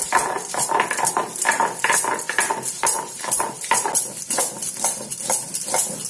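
Stone pestle scraping and knocking over a flat stone grinding slab (shil-nora) in quick, rhythmic back-and-forth strokes, several a second: fennel seeds and ginger being wet-ground into a fine paste.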